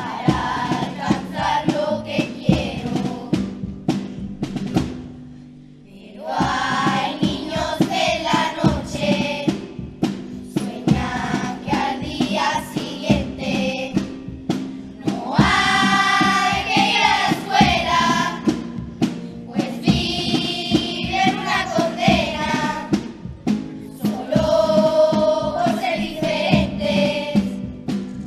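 Children's carnival comparsa choir singing together over instrumental backing with percussion. The singing breaks off briefly about five seconds in, then comes back in.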